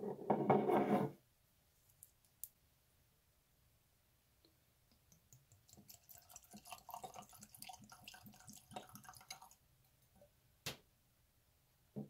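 A short crackling rustle as a miniature glass bottle is opened, then bourbon poured from it into a tulip-shaped tasting glass, trickling and glugging irregularly for about four seconds. A single sharp tap follows near the end as glass meets the table.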